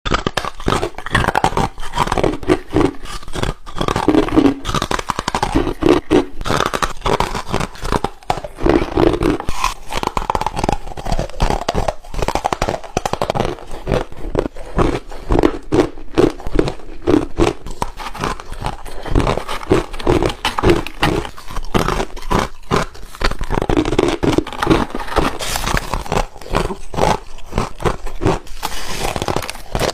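Hard refrozen ice being bitten and crunched right at the microphone: a dense, continuous crackle of cracking ice with a heavier crunch every second or two.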